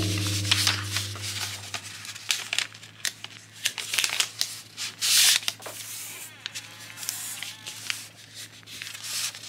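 Translucent printed paper sleeve crinkling and rustling as it is folded by hand around sticker sheets: many quick crisp rustles, with a longer sliding rustle about five seconds in.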